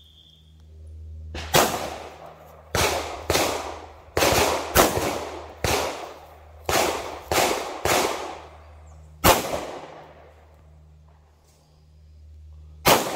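Canik 9mm pistol firing about eleven shots at an uneven pace, each a sharp crack with a short echo, during a timed shooting string. The longest gap comes before the last shot, near the end.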